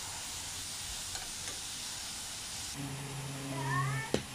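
Chunks of crayfish sizzling as they fry in hot coconut oil, stirred in the pan with a spatula. The sizzle cuts off about three seconds in, followed by a low steady hum and a sharp knock near the end.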